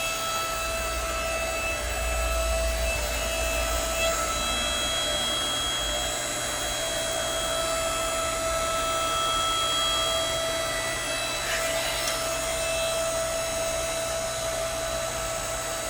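Electric motor and hydraulic pump of a 7-ton electric log splitter running steadily with a constant whine, a deeper rumble under it during the first few seconds.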